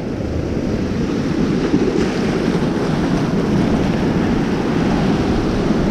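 Sea surf washing and breaking over a rocky shoreline, a steady rushing of water, with wind buffeting the microphone.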